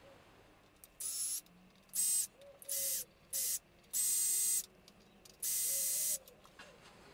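Cordless drill/driver running in six short bursts, each under a second, as it works the screws of a plastic resin-casting mould frame.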